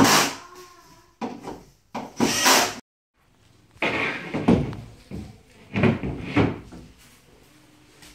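Large laminated wooden bed panel being handled on a storage-bed frame: a sharp knock at the start, then scraping and thumps as the board is slid and laid down over the compartments.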